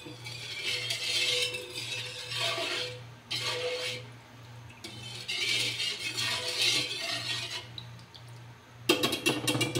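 Wire whisk swishing through a thin milky maja blanca mixture in a large aluminium pan, in repeated strokes. It clinks against the pan several times near the end. A steady low hum runs underneath.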